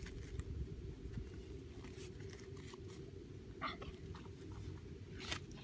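Wind rumbling on the microphone, a steady low buffeting, with a couple of faint brief handling sounds about two-thirds of the way in and near the end.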